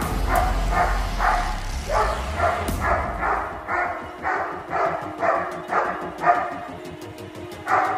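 A black German Shepherd protection dog barking steadily, about two barks a second, at an approaching decoy. It is threat barking from a controlled hold beside its handler. The barks pause briefly near the end.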